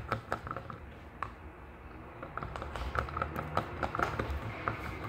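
A mixing tool clicking and tapping against a small plastic cup in quick, irregular strokes as shampoo and salt are stirred together.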